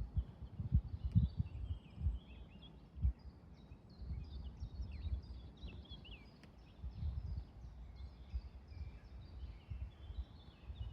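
Small songbirds singing: fast runs of short, high, downslurred chirps all through, over irregular low rumbling of wind on the microphone that is strongest in the first three seconds.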